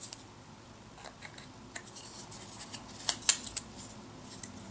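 Thin wooden box pieces with finger joints clicking and scraping against each other as they are handled and fitted together by hand. There are scattered light clicks and a cluster of sharper, louder clicks about three seconds in.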